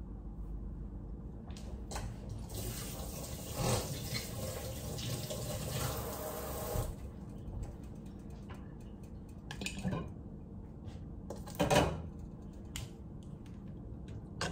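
Kitchen tap running for about five seconds, turned on and off sharply. It is followed by a couple of short knocks of kitchenware, the loudest near the end.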